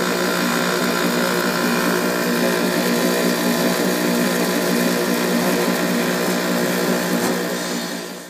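Eddy current separator running: a steady mechanical hum from its spinning rotor and belt, with a hiss of fine shredded scrap pouring over the drum. It fades out near the end.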